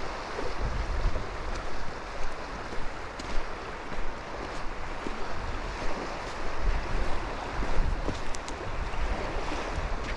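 Waves washing onto a beach, a steady rush, with gusts of wind buffeting the microphone in uneven low rumbles.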